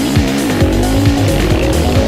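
Background music with a steady beat, with a sport quad's engine revving under it, the pitch rising and falling as the throttle is worked.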